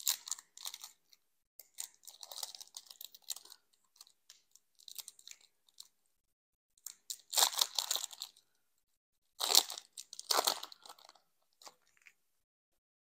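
Foil Pokémon booster pack wrapper crinkling and tearing as it is ripped open by hand, in several bursts of crackling. The loudest come about seven and a half and ten seconds in.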